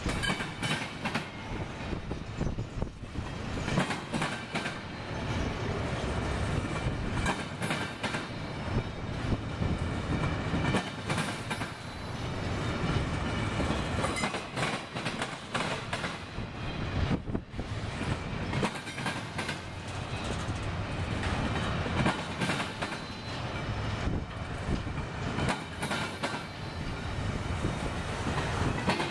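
Intermodal freight cars rolling past close by, their wheels clacking steadily over the rails, with a faint high wheel squeal running underneath.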